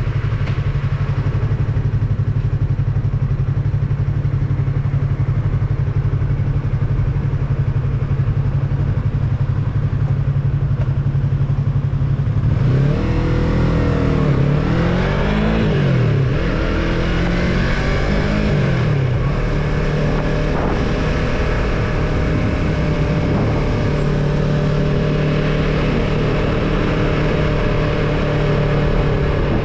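Yamaha MT-03 motorcycle engine running steadily under way, with wind and road noise. About halfway through, the revs rise and drop several times in quick succession, then settle into a steady, slightly higher note.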